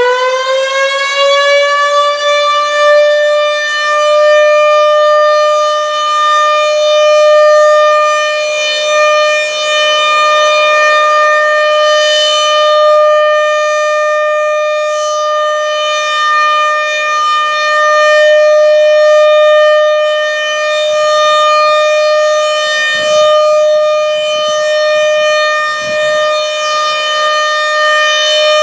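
RM-130 outdoor warning siren finishes winding up in the first couple of seconds and then holds one steady, loud tone for its test. The tone swells and fades every few seconds.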